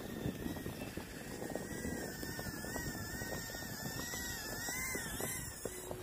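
Estes Proto N pico quadcopter's tiny brushed motors whining, the high pitch wavering up and down as the drone maneuvers.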